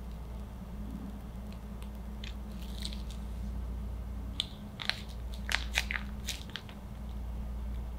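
Plastic piping bag of buttercream crinkling and clicking as it is handled and squeezed. A cluster of sharp crackles comes from about four and a half to six and a half seconds in, over a steady low hum.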